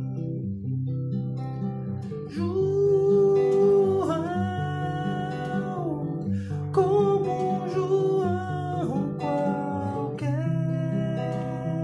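Nylon-string classical guitar played fingerstyle, a steady run of plucked chords. From about two seconds in to about nine seconds, a wordless sung or hummed melody with sliding pitch rides over the guitar and is the loudest part, with a short break around six seconds.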